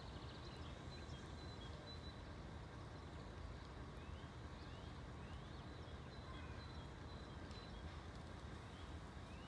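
Faint outdoor background at a closed level crossing: a steady low rumble, with a few short, high rising chirps typical of small birds scattered through it.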